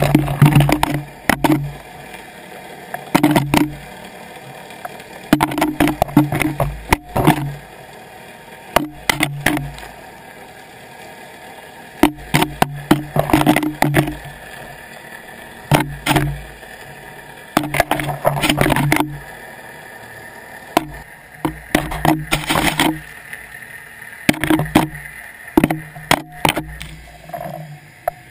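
Underwater GoPro housing dragged as a dredge across a rocky, mussel-covered seabed, knocking and scraping against rocks and shells in irregular clusters of sharp clacks every second or two.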